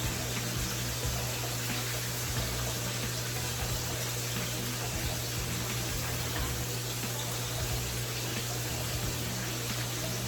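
Chicken deep-frying in a small pot of grease: a steady sizzle with small scattered pops, over a low steady hum.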